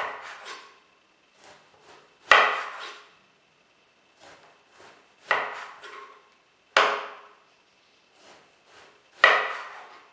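Kitchen knife slicing a peeled round eggplant: a few soft sawing strokes through the flesh, then a sharp tap as the blade cuts through and hits the stone countertop, five times.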